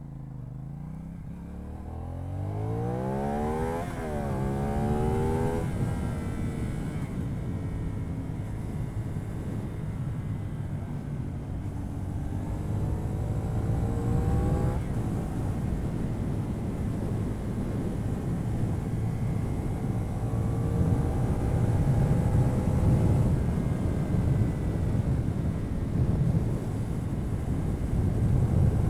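CFMoto 450NK's parallel-twin engine through its stock exhaust, heard onboard while accelerating hard: the revs climb and drop sharply with upshifts about 4 s and 15 s in, then climb again. Wind noise builds with speed and partly drowns out the exhaust note.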